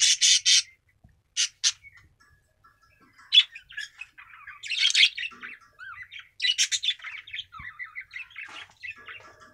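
Cockatiels calling: a run of loud, harsh screeches at the start and two more about a second and a half in, then a busy, near-continuous chatter of high chirps and squawks.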